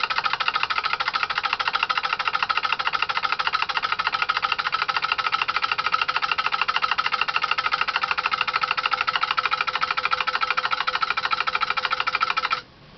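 Homemade DC motor made from microwave-oven transformer coils and magnetron magnets, running with its coil-switching relays clattering rapidly and steadily, noisy. The clatter cuts off suddenly near the end as the motor stops.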